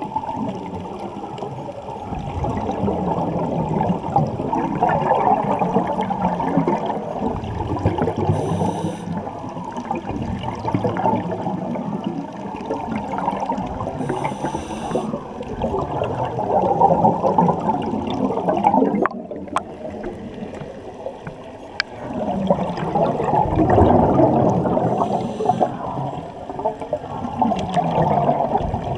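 Muffled underwater water noise and bubbling picked up by a submerged camera, swelling and easing, with a brief dip a little past halfway.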